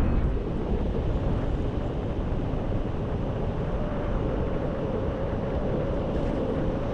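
Airflow buffeting the microphone of a paraglider in flight: a steady rush of wind noise, heaviest in the low end, easing slightly about half a second in.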